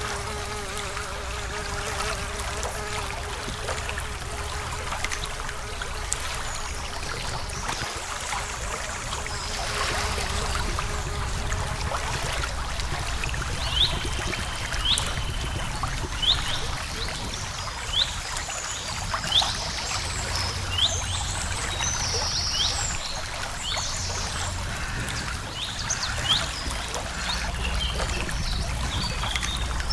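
Creek water trickling steadily under a low rumble. From about the middle on, a bird repeats a short, sharp upswept call roughly once a second, with a few higher chirps from other birds.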